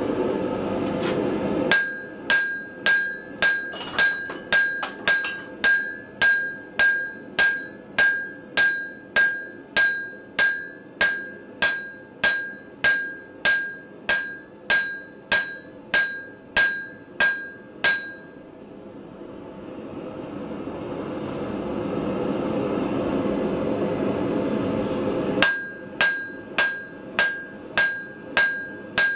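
Hand hammer blows on a red-hot cable Damascus blade lying on an anvil, about two a second, each with a short high ring from the anvil. The hammering stops about 18 seconds in, leaving a steady rushing noise from the forge burner, then starts again about 25 seconds in.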